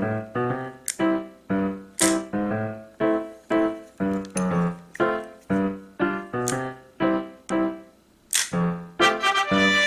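Background music: a light melody of short, quickly fading keyboard-like notes, about two a second, with a crisp percussion click every second or so.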